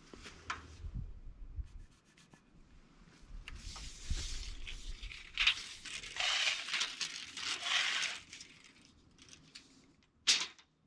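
Rustling and scraping as a tape measure is pulled out and handled against a wooden post, in several bursts, with one sharp click near the end.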